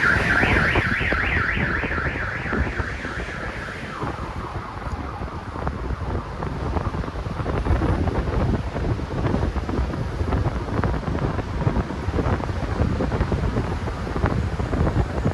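Electronic warbling siren-type horn, its pitch wobbling up and down about four times a second, sounding for about four seconds and then cutting off. Wind buffeting on the microphone and traffic rumble follow.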